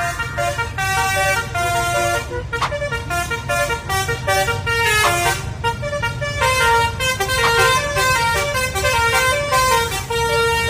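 Basuri 'telolet' multi-tone bus horn playing a tune of quick stepped notes, over the low rumble of the bus.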